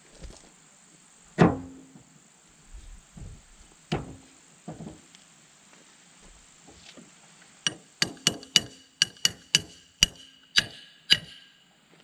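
Sharp metal knocks that ring briefly as a hydraulic cylinder is reassembled: a few single knocks, then a quick run of about ten, roughly three a second, near the end.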